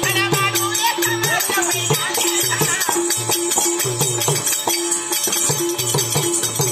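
Folk-drama accompaniment: a two-headed barrel drum beating a steady rhythm with a harmonium, under a constant jingle of dancers' ankle bells. A voice sings briefly in the first couple of seconds.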